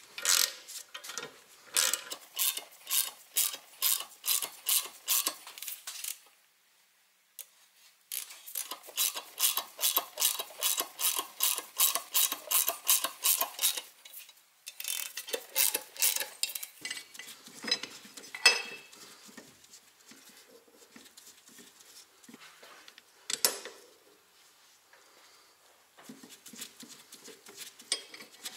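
Hand ratchet wrench being worked in quick strokes: runs of sharp metallic clicks, about three a second, broken by pauses. After that come lighter scattered clinks of tools on metal and a couple of single louder clacks.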